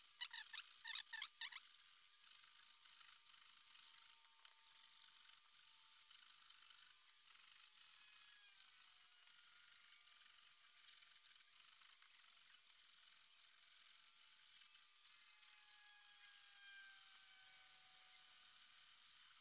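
Sandpaper rubbed by hand over the filed backstrap of a Beretta 92FS's aluminium-alloy frame: about six quick strokes in the first second and a half, then near silence with only very faint rubbing.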